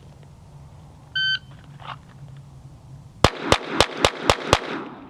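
Shot timer's start beep, then about two seconds later six rapid pistol shots, a bill drill, fired about a quarter second apart over roughly 1.3 seconds.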